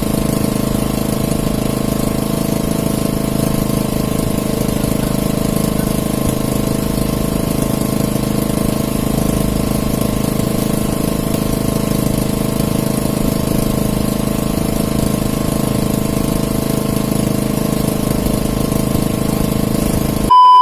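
Engine aboard an outrigger fishing boat running steadily at an unchanging speed. A short loud beep comes right at the end.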